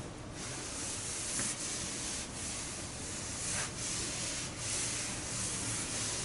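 Hand sanding of primer surfacer on a car's roof panel: continuous scratchy rubbing of abrasive paper on the sprayed primer, in back-and-forth strokes, some louder than others, to level the primer.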